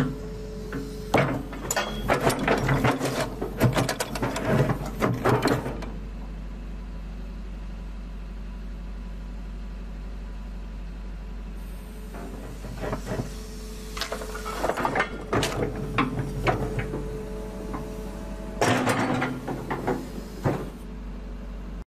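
Kobelco SK125SR hydraulic excavator running, its engine giving a steady low hum while the boom, arm and bucket are worked. Bursts of clattering and knocking from the moving front linkage fill the first few seconds and most of the second half, with a quieter stretch of the engine alone in between.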